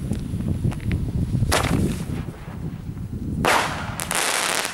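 Panda Defender 1 firework tube firing: the launch shot about one and a half seconds in, then about two seconds later the loudest sound, the shell bursting overhead and splitting into small crackling star breaks.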